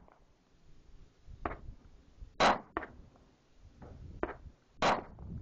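HK (Heckler & Koch) pistol fired at a slow, even pace: two loud shots about two and a half seconds apart, with fainter sharp cracks in between.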